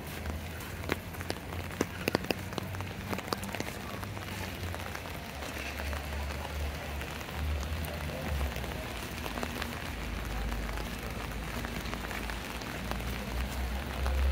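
Steady rain falling, with a few sharp ticks in the first couple of seconds and a low steady rumble underneath.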